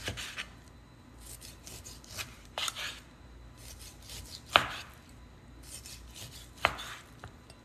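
Large kitchen knife cutting between the bones of a raw pork rib rack on a plastic cutting board: quiet slicing and scraping, with four sharp knocks of the blade on the board. The loudest knock comes about halfway through.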